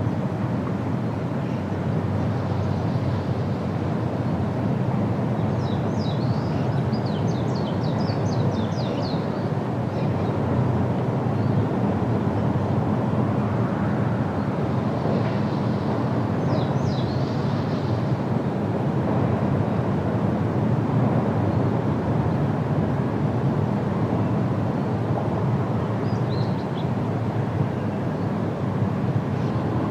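Steady low rumbling outdoor noise throughout, with a small bird's rapid high chirps breaking in faintly in short runs: about six seconds in, again around sixteen seconds, and near the end.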